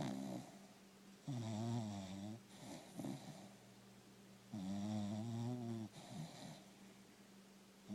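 Cocker spaniel snoring in deep sleep: two long, pitched snores about three seconds apart, each lasting about a second, with shorter, softer breaths between them.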